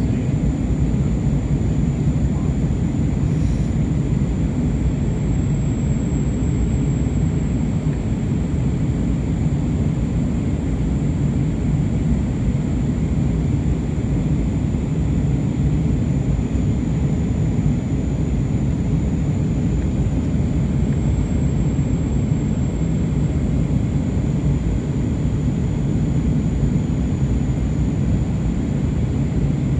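Steady cabin noise of an Airbus A320-232 in flight, heard from a window seat: a constant low engine drone and airflow rush, with a thin, steady high-pitched whine over it.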